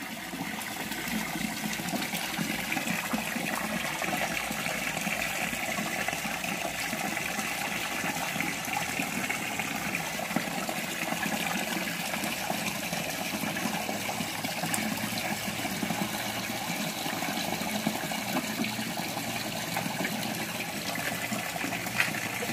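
Small rock waterfall in a fish pond, water splashing steadily into the pool.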